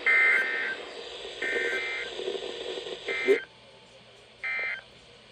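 NOAA Weather Radio EAS digital data bursts (SAME end-of-message codes): four short, harsh two-tone screeching bursts about a second apart, closing the tornado watch broadcast. They sound over radio hiss, which cuts off with a click just after three seconds, so the last burst plays over near quiet.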